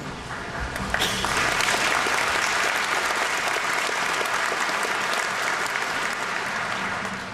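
Audience applauding, the clapping swelling about a second in and dying away near the end.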